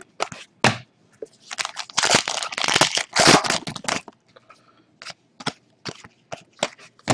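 Trading cards being handled and flicked through, with short sharp card clicks. Midway, a plastic wrapper crinkles loudly for about two and a half seconds.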